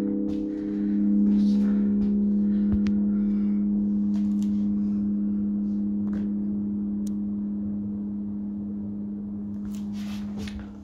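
A large church bell in the tower rings on with a deep, humming tone, swelling again about a second in and then slowly fading away.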